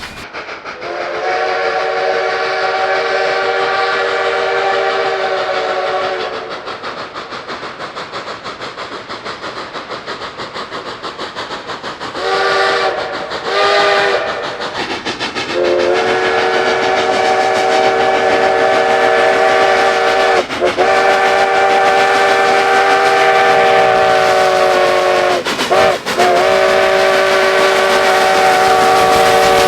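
A locomotive's chime signal, several notes sounding together as one chord. It gives a long blast, then two short toots, then a long drawn-out blast broken twice by brief dips. In the pause between the blasts, a rapid rhythmic pulsing of the passing train runs at about three or four beats a second.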